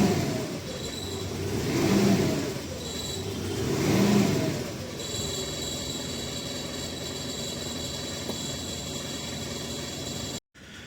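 Mitsubishi Pajero Sport's common-rail diesel engine revved briefly three times, about two seconds apart, each time falling back. After that it settles into a steady idle.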